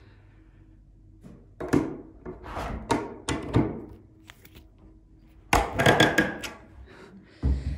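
Ceiling attic hatch being pushed shut with a long metal hook pole: the pole and panel knock and rub in a run of uneven clunks, with a louder cluster of knocks about two-thirds of the way through.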